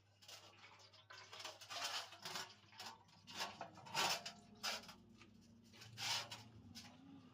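Metal parts and hand tools clinking and scraping in an irregular clatter of knocks and short scrapes, loudest about four and six seconds in.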